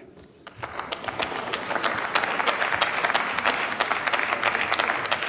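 Members of parliament applauding. The clapping starts about half a second in and swells to steady, dense applause.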